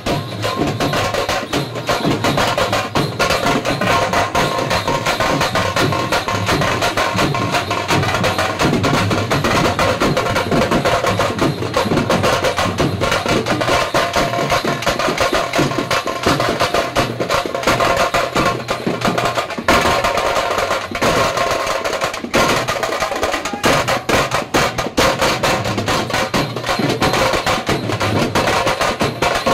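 Loud, fast drumming music with a dense, unbroken beat.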